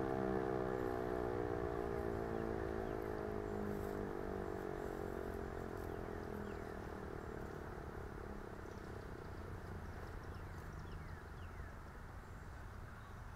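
Federal Signal Eclipse 8 electromechanical warning siren winding down at the end of its test: its tone slides steadily lower in pitch and fades away over several seconds.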